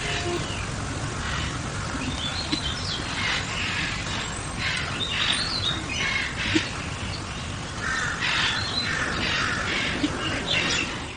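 Outdoor field recording of birds calling: harsh, crow-like calls repeated every second or two over a steady hiss of background noise. The sound cuts off suddenly at the end.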